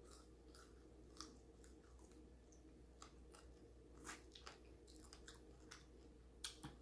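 Faint chewing of fried chicken close to the microphone: soft, irregular mouth clicks and smacks over a low steady hum.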